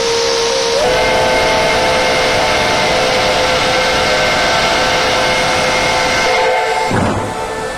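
P36 steam locomotive's whistle sounding one long chord blast of about seven seconds over a hiss of steam, its notes filling out about a second in. Near the end, once the whistle stops, the locomotive's exhaust beats are heard as it works.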